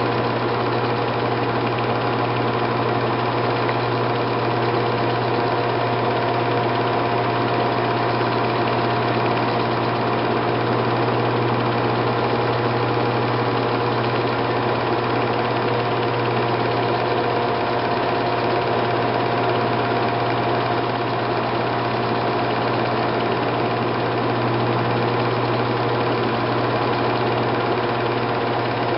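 Steady whirring hum of a film projector running, its motor and mechanism holding one constant pitch throughout. Typical of a silent home movie transferred by filming or recording it off a projector.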